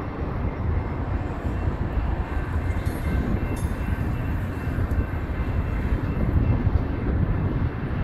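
Double-stack intermodal freight cars rolling past: a steady rumble of steel wheels on rail, with faint thin steady tones above it.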